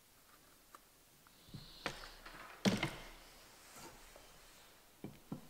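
Faint workbench handling sounds: a few light taps and knocks as the hot-melt glue gun is lifted off the freshly filled crack and tools are moved about, the loudest knock about halfway through and two quick knocks near the end.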